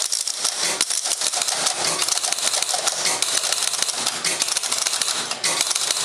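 Score reels and reset relays of a 1974 Bally Champ electromechanical pinball machine clattering through the game-start reset sequence. It is a rapid, dense stream of clicks and clacks as the relays fire and the reels step back to zero.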